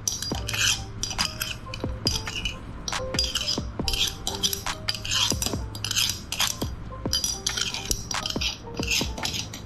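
Meat grinder working through jelly: a fast run of metallic clicks and clinks over a steady low hum.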